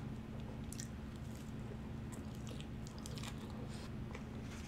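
A person chewing a forkful of animal-style fries, soft fries topped with melted cheese and sauce, with a few faint clicks between chews.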